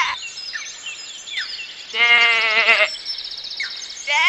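A sheep bleats once, a wavering call lasting just under a second, about two seconds in. Faint short falling chirps and a thin high call sound around it.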